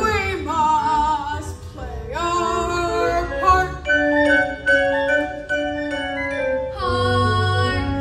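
Young voices singing a musical-theatre song over instrumental accompaniment, with held notes and sliding pitch.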